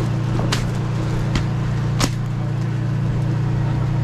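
Steady low hum of the fishing boat's idling outboard motor, with three sharp clicks or knocks about half a second, a second and a half, and two seconds in.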